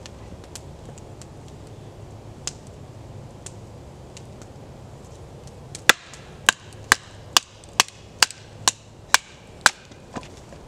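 Batoning: a wooden baton striking the spine of a knife to drive it down through a stick of green wood standing on a stump. After a few faint taps, about nine sharp knocks come roughly two a second, starting a little past halfway through.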